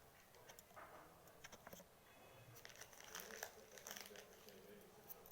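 Faint crinkling and scattered small clicks as small foam balls are handled and pressed into homemade slime.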